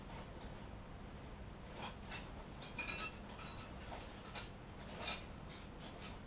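Several light metallic clinks and taps, as of small tools or parts being picked up and set down, the loudest about three and five seconds in, over a faint steady hum.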